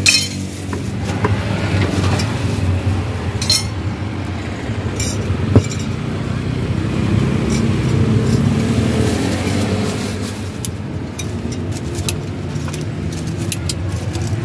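Road traffic running steadily, an engine swelling a little louder about halfway through, with a few light metallic clinks of tongs and spoon against plates.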